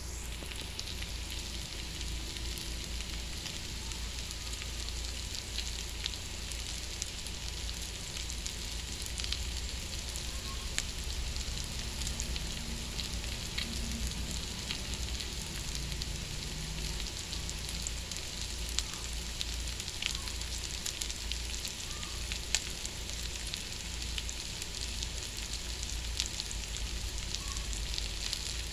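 Chicken, sliced sausage, onion and bell pepper frying in oil in a wok: a steady sizzling hiss with scattered small pops and crackles.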